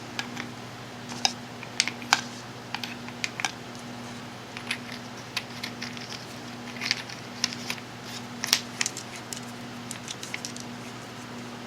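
Irregular small clicks and clinks of AA batteries and flashlight parts being handled and fitted into an LED flashlight, over a steady low hum.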